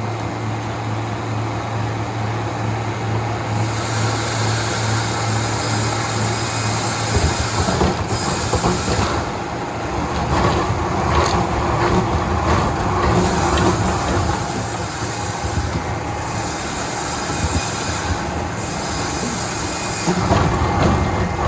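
Sawmill machinery running: a steady mechanical rumble with rattling and knocks, changing abruptly in character a few times.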